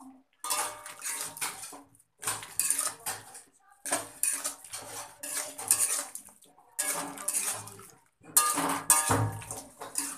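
Metal spatula scraping and clanking against a metal kadai while stirring a thick curry, in about six bouts of a second or so each with brief pauses between.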